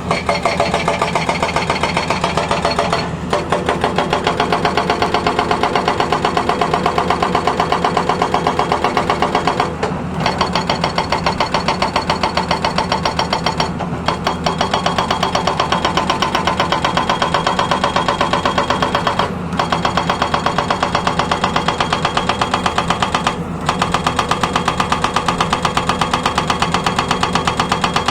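Hydraulic breaker on a Tata Hitachi excavator hammering, rapid regular blows over the drone of the machine's engine, stopping for a moment about five times before starting again.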